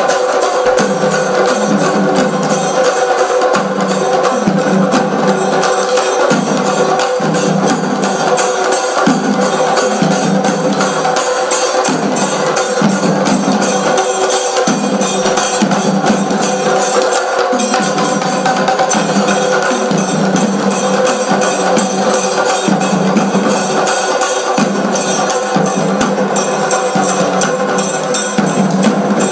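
Live drumming on large barrel drums, a fast dense beat with no pauses, over a steady held tone.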